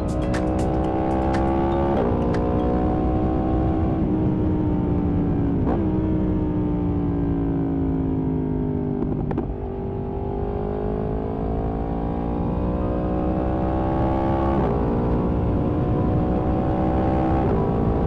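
Yamaha MT-10's crossplane inline-four through an Akrapovič exhaust, under way: the engine note rises and falls with the throttle and steps in pitch at several gear changes, with a long fall off the throttle near the middle before it pulls up again. Wind rush sits under it.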